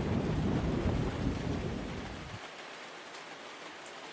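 Thunder rumbling over steady heavy rain. The rumble cuts off abruptly about two and a half seconds in, leaving only the even hiss of the rain.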